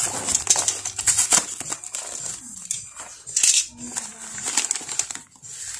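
Cardboard box flaps and the plastic pouches of hydroponic nutrient rustling and crinkling as they are handled inside a shipping box, in an uneven string of quick scrapes and crackles.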